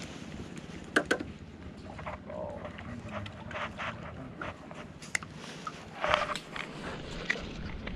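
Spinning rod and reel being handled and cranked: a sharp double click about a second in, then scattered small ticks and short rustling, splashy noises.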